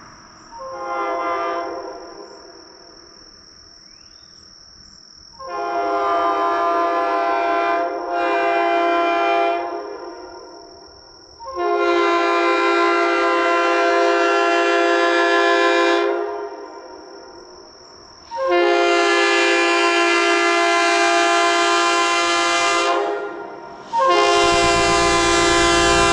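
Leslie RS3K three-chime locomotive air horn sounding a chord in six blasts: a short one, two of about two seconds close together, then three longer blasts of four to five seconds. A faint steady high whine is heard in the gaps between blasts.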